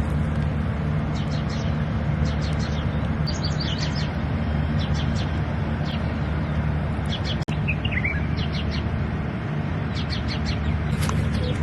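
Birds chirping in short, scattered high calls over a steady low hum.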